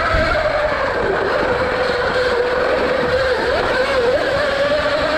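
Electric dirt bike motor whining under way, its pitch falling a little about a second in and wavering after, over a low rumble.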